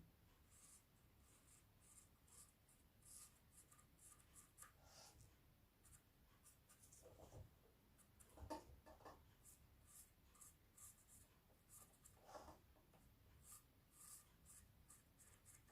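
Faint scratching of a metallic pen drawing short, repeated strokes over a mesh wig cap, with a couple of soft bumps.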